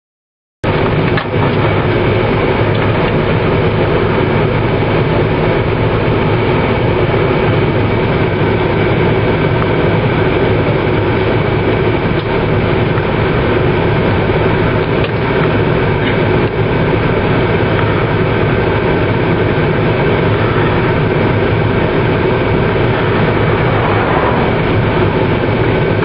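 Steady, loud noise of a vehicle on the move: engine hum with road and wind noise, starting abruptly about half a second in.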